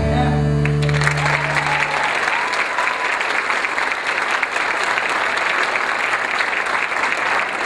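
The last held chord of a pop song dies away as an audience breaks into applause about a second in; the clapping then goes on steadily.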